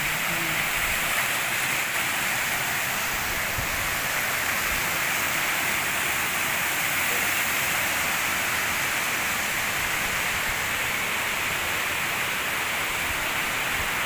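Small waterfall cascading over rock ledges: a steady rush of falling water.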